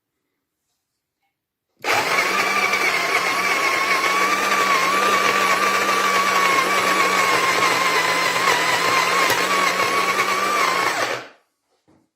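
Melitta Molino electric burr coffee grinder's motor running steadily for about nine seconds, starting about two seconds in and cutting off near the end, with a steady whine over a low hum.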